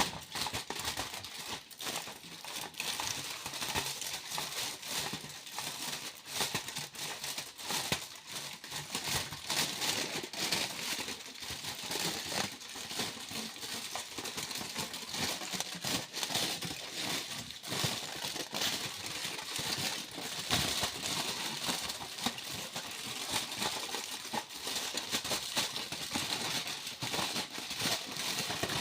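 Foil being crumpled and crinkled by hand: a dense, irregular run of crackles that goes on without a break.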